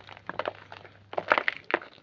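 Homemade grey gym chalk crunching and crumbling in irregular crackly bursts: a short cluster about half a second in, then a louder run of crunches past the middle.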